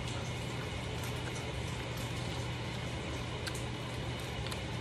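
Steady indoor background hum and hiss, with a couple of faint clicks about three and a half seconds in and near the end.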